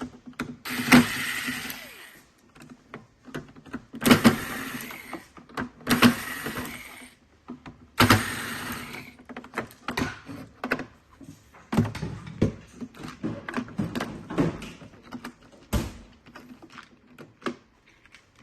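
Plastic parts of a robot-vacuum base station being handled and taken apart by hand: four scraping sweeps of about a second each, then a run of separate clicks and knocks.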